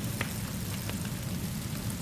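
Steady rainfall hissing, with a low rumble beneath it and a few faint crackles from a wood fire.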